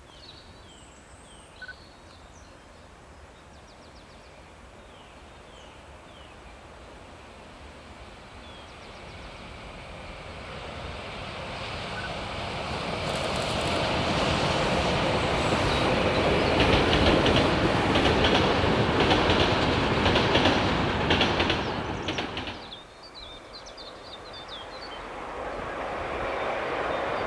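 Express passenger train hauled by a Škoda class 350 electric locomotive approaching and passing close by, growing steadily louder to a peak. Its wheels clatter rhythmically over the rail joints as the coaches go past. After a sudden drop near the end, another train is heard approaching and getting louder.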